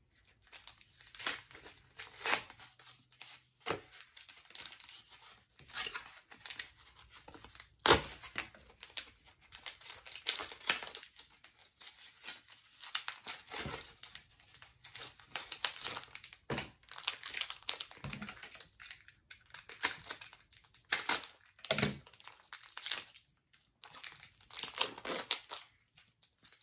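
A foil Pokémon card booster pack being torn open and its wrapper crinkled in the hands: irregular rustles and tearing, with one sharp snap about eight seconds in.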